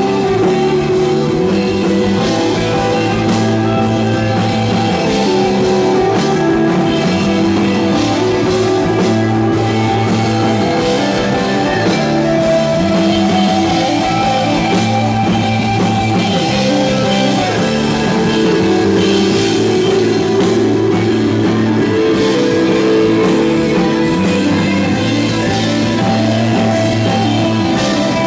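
Psychedelic rock band playing live: electric guitar with drum kit, held notes over a steady low line.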